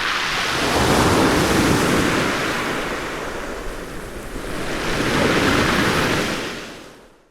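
Ocean waves washing onto a beach, two surges rising and falling a few seconds apart, fading out near the end.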